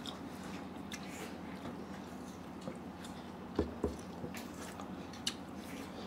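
Soft squishing of dhido and curry being mixed by hand on a metal plate, with light eating noises and two short dull knocks about three and a half seconds in.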